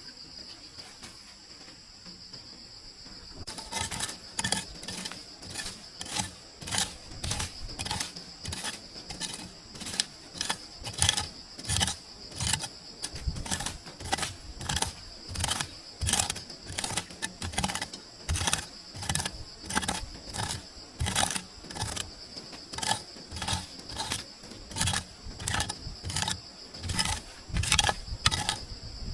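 Insects, crickets by the sound of it, trilling steadily in the forest. About three seconds in, a regular series of short knocks or crunches begins, about two a second, and it is louder than the insects.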